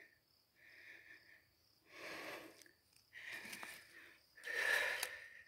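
A man breathing hard, four heavy breaths about a second apart that grow louder, winded from the digging work.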